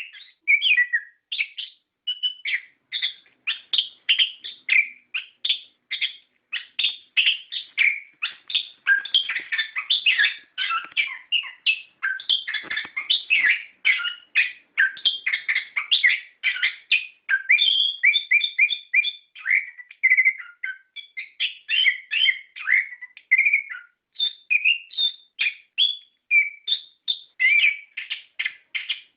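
Chestnut-capped thrush singing a long, unbroken run of rapid, varied whistled notes and trills, pausing briefly only a couple of times.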